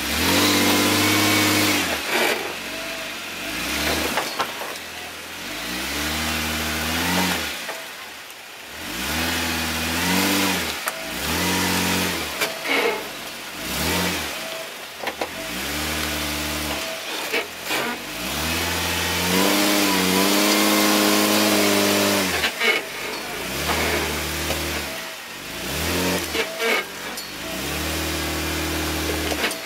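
Jeep Wrangler JK's V6 engine revving in repeated surges while crawling over off-road obstacles, its pitch climbing and dropping back about ten times as the throttle is blipped and released.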